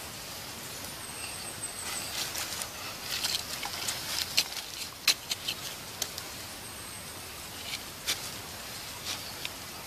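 Small wood campfire crackling, with irregular sharp pops that come thickest in the middle and again near the end, over a steady hiss.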